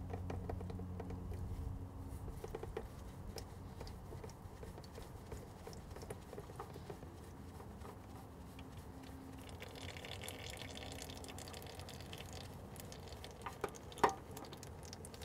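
Engine oil trickling and dripping from the oil filter adapter into a drain pan as the oil filter is unscrewed by hand, with small clicks and one sharp knock near the end.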